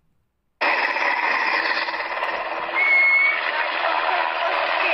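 Helicopter noise picked up by a phone microphone: a loud, even noise that starts suddenly about half a second in, with a short high whistle near the middle.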